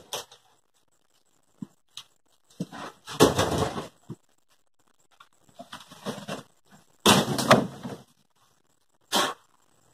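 A large wooden sheet panel scraping and knocking against the floor and doorframe as it is hauled out, in three rough scrapes about a second long, with a few sharp knocks before them and a short thump near the end.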